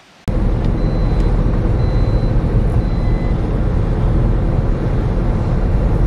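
Steady low rumble of a vehicle on the move: engine and road noise mixed with wind, starting a moment in after a brief silence.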